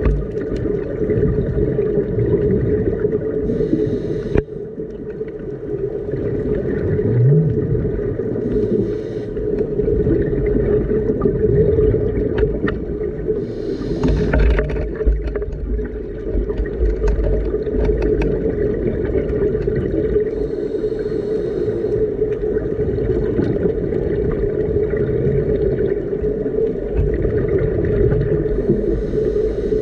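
Underwater sound of a scuba diver breathing: bursts of exhaled regulator bubbles about every five to six seconds, over a steady low drone.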